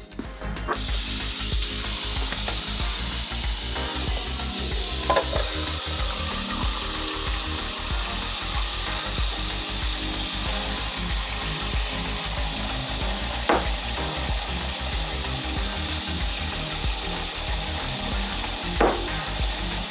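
Kitchen faucet running a steady stream of water into a pot in the sink, filling it. The tap comes on just under a second in, and three brief knocks sound along the way.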